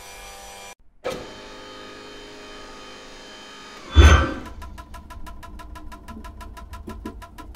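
Sound-design effects for a looping sci-fi cutting machine: a steady electric hum that drops out briefly about a second in, a whoosh swelling to a deep thud about four seconds in, then a rapid run of ticks, about six a second, as the rod is sliced into discs.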